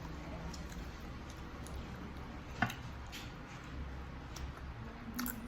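Faint eating sounds over a steady low hum, with one sharp click about two and a half seconds in.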